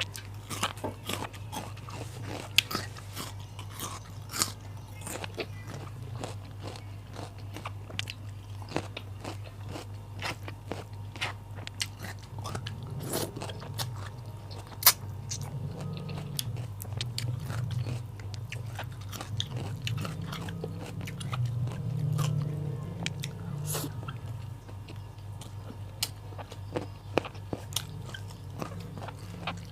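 Close-miked biting and chewing of raw vegetables (lalapan) with rice, with many crisp crunches scattered throughout. A steady low hum runs underneath.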